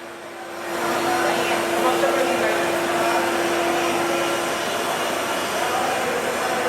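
A 60-inch tube axial fan running: a steady rush of air that builds up over the first second and then holds, with a steady hum that stops about four and a half seconds in.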